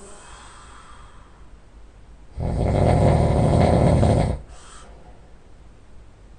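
A person snoring in sleep. After a couple of seconds of quiet breathing, one loud snore starts about two and a half seconds in and lasts about two seconds. A short, faint breath follows it.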